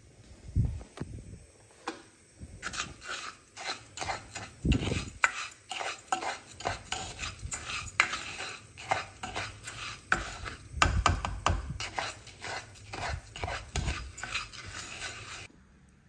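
Rice being stirred and scraped around a nonstick saucepan with a black plastic spoon, in quick repeated strokes with a few dull knocks of the pan. The stirring stops shortly before the end.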